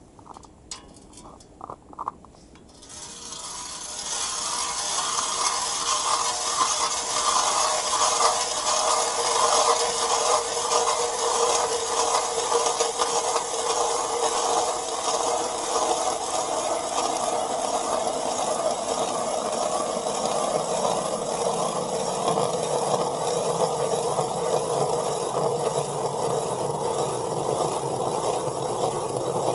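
A 150 mm titanium ice auger boring a hole through lake ice: steady, continuous grinding and scraping as the blades cut. It starts about three seconds in, after a few light clicks as the auger is set on the ice.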